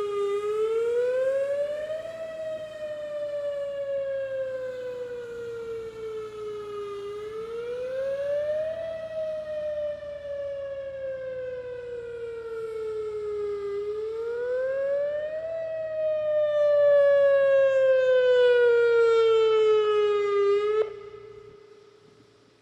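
Whelen WS-2000R electronic outdoor warning siren sounding its wail: a tone that climbs over about two seconds and slides back down over about five, three times over. It cuts off abruptly near the end.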